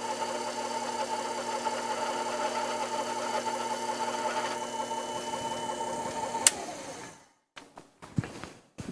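Sherline benchtop lathe's spindle motor running with a steady whine while the cutter takes a light facing cut across the end of the spinning metal bar. About six and a half seconds in there is a sharp click, and the motor winds down and stops, followed by a few small knocks.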